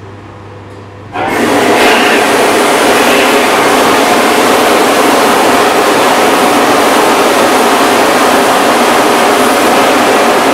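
Steam injection on a Mondial Forni deck oven: a loud, steady hiss of steam rushing into the oven chambers and billowing out, starting suddenly about a second in.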